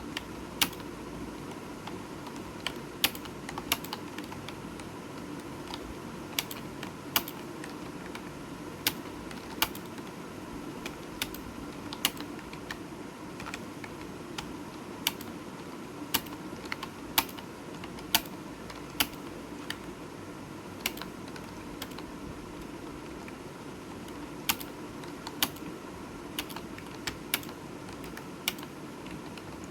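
Typing on a computer keyboard: irregular key clicks, some much louder than the rest, over a steady low hum.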